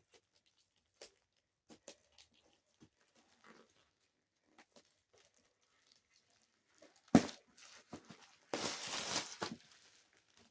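A shipping box being handled and opened: scattered light taps and clicks, a sharp knock about seven seconds in, then about a second of loud tearing packaging.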